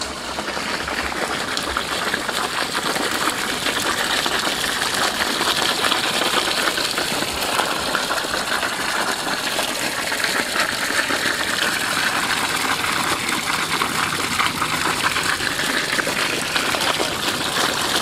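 Steady rush and splatter of water pouring from the outlet pipe of a homemade pump driven by a washing-machine motor, with the pump running. It grows a little louder about a second in, then holds.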